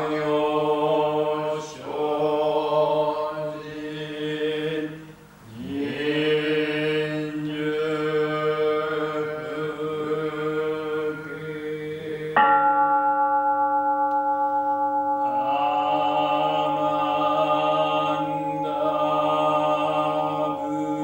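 Buddhist sutra chanting by male voices in a Jōdo Shinshū service, held and gliding notes in unison. About twelve seconds in, a large temple bowl bell (kin) is struck once and rings on steadily under the chanting.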